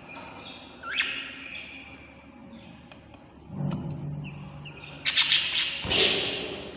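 Baby budgies in a nest box chirping, with short high calls and a rising chirp. About five seconds in come louder, harsh squawks.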